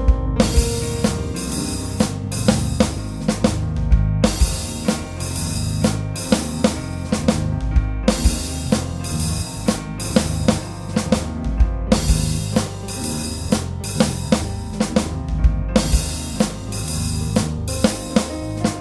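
Music built on a drum kit: bass drum, snare and cymbals playing a steady beat over a low bass line.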